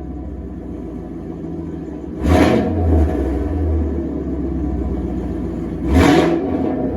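2017 Camaro SS's 6.2-litre LT1 V8 running through a new MBRP cat-back exhaust: a steady low idle, blipped sharply twice, about two seconds in and again near the end.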